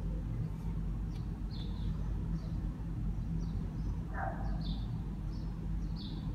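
A small bird chirping over and over in short high chirps, roughly one or two a second, with one lower call about four seconds in, over a steady low hum.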